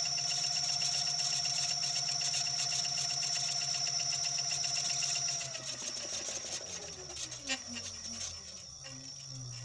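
Hoverboard hub motor driving a rewired washing machine motor as a generator, running with a steady electric whine and hum. About five and a half seconds in its pitch falls steadily as the motors slow, with a single click near the end.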